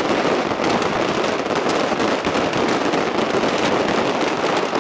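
Large display fireworks going off in a dense, unbroken barrage: overlapping shell bursts with continuous crackling and rumble, at a steady loudness.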